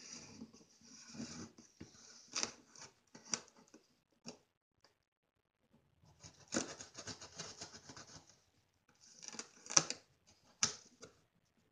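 Pocket knife slitting the packing tape on a cardboard box, in scratchy bursts of cutting and cardboard rubbing, with a few sharp clicks.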